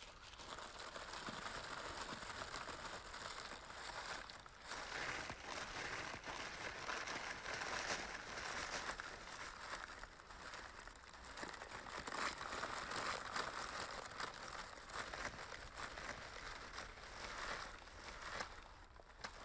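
Thin plastic carrier bag crinkling and rustling as it is handled and pulled open by hand, a continuous rustle with many small crackles.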